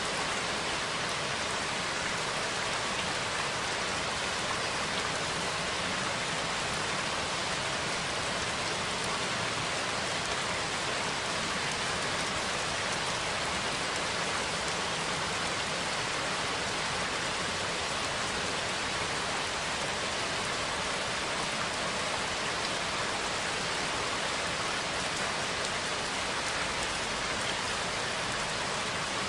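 Steady rain falling, an even hiss of many drops on a surface.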